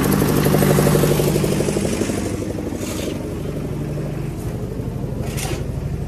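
Small stationary engine of a concrete mixer running steadily with a fast, even chugging beat. It is louder for the first two seconds, then slightly quieter, with a couple of short scrapes.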